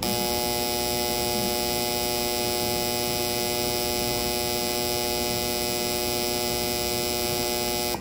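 GE dryer's buzzer sounding one steady, continuous buzz that starts and stops abruptly. This is the dryer's cool-down / wrinkle-care signal.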